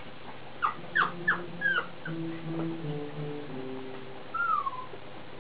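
Biewer Yorkshire terrier puppy yipping: four short, high yelps about a second in, then a single falling whimper near the end, while it play-bites a hand.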